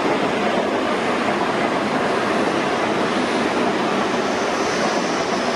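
Electric suburban passenger train running past along the platform, a steady, even rumble and rush of wheels on rails.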